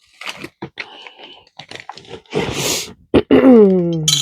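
Small plastic beads and charms clicking and rustling as they are handled. About two and a half seconds in there is a short breathy rush, and near the end a person's drawn-out groan that falls in pitch.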